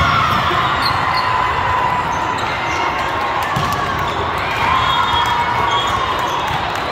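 Steady din of a large hall with several volleyball games going: crowd voices, balls being struck and bouncing on the courts, and scattered sharp knocks.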